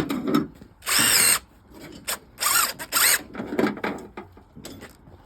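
Power drill run in two short bursts, about a second in and again around two and a half seconds, with small knocks and clicks between.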